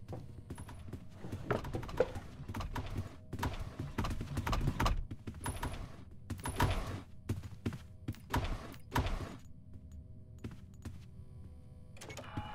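A series of irregular knocks and clicks, thinning out after about nine seconds.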